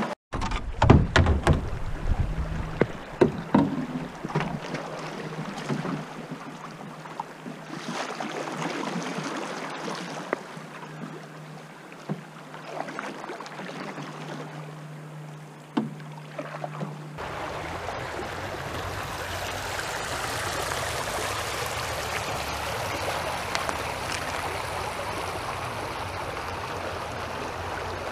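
Canoe being paddled through shallow water, with several loud knocks of paddle and hull over the first few seconds, then quieter paddle strokes and water lapping. About 17 seconds in, this gives way to the steady rush of a shallow river running over gravel.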